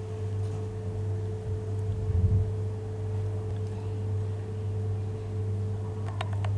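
A steady low hum, with a low bump about two seconds in and a few light clicks near the end as a metal ladle and silicone spatula drop thick cake batter onto a steel tray.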